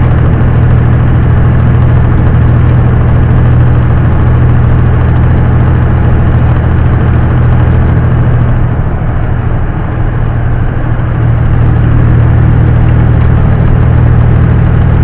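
Semi truck's diesel engine droning steadily from inside the cab at highway speed, with road noise, easing off briefly about nine seconds in.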